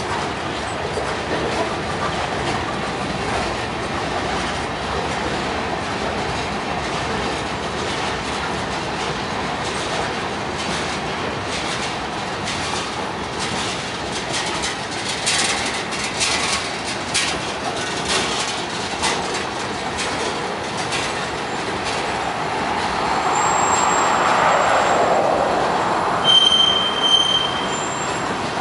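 Freight train cars rolling past at close range, with a steady rumble and wheels clicking over the rail joints. Near the end the wheels squeal in thin, steady high tones.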